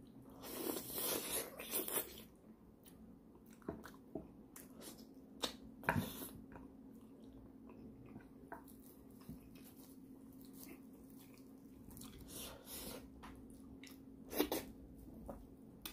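Close-up wet chewing and smacking of a mouthful of gelatinous pork leg in gravy, busiest in the first couple of seconds, then scattered sticky clicks and smacks.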